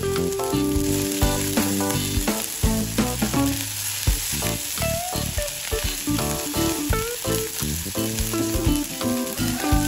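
Fried rice sizzling in a non-stick frying pan as it is stirred and turned with a spatula, with short clicks and scrapes of the spatula against the pan. Background music plays along.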